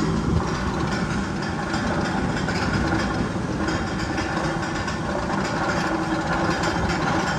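Steady train-like mechanical rumble in the Magnum XL-200's tunnel, either one of the tunnel's sound effects or the coaster train itself.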